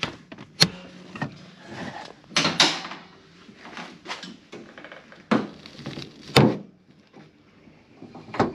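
Nissan X-Trail T31 bonnet being released and opened: sharp clicks and clunks from the release lever, the bonnet latch and the prop rod as it is raised and propped.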